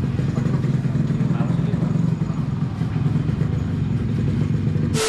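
A motorcycle engine idling steadily. At the very end a sudden burst of hiss with a steady tone cuts in.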